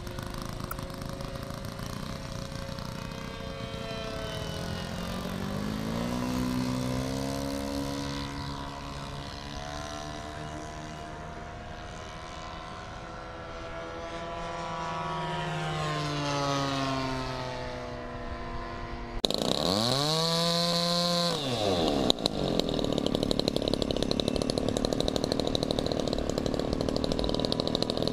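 A radio-controlled model airplane's engine and propeller in flight, the pitch rising and falling as the plane climbs, turns and passes. About two-thirds of the way in, a model plane's engine starts sounding close by: it revs up and back down, then runs steadily and louder.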